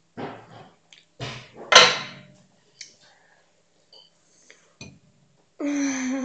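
A girl's wordless vocal sounds while eating: a loud breathy burst about two seconds in and a held voiced sound near the end. Between them come a few small clicks of a metal fork on a plate.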